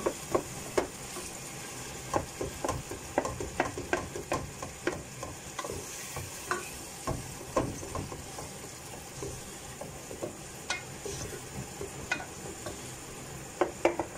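Wooden spatula stirring and breaking up tomatoes frying in oil in a metal saucepan: irregular knocks and scrapes of the spatula against the pan over a steady sizzle.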